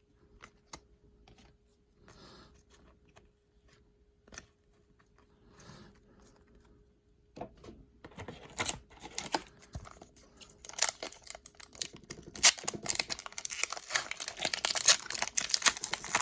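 Trading cards handled with soft clicks and rustles, then from about seven seconds in a foil card pack wrapper crinkling and tearing as it is ripped open, louder near the end; the wrapper rips unevenly.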